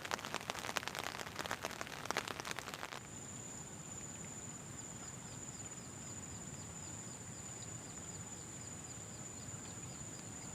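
A dense crackling patter for about three seconds, then a sudden cut to steady insect chirring: a thin, high, unbroken whine with a faint chirp repeating about twice a second, typical of crickets.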